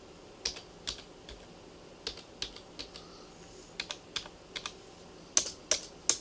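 Typing on a Compaq 6511-VA keyboard: irregular key clicks in small runs, with three louder clicks near the end.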